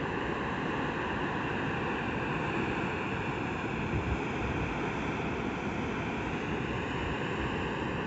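Water rushing down a concrete dam spillway and churning into the channel at its foot: a steady, even rush of falling water.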